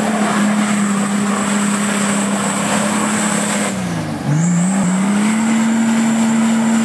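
Nissan Patrol GR's turbo engine held at high revs with a high turbo whistle over it. The revs and the whistle drop away about four seconds in, then pick back up and hold steady again.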